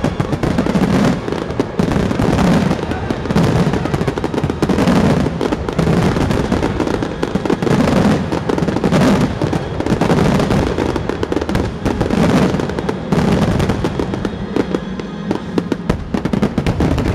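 A dense, continuous barrage of aerial fireworks shells: rapid overlapping booms and crackling bursts with barely a gap, the closing barrage of the show. Music plays underneath.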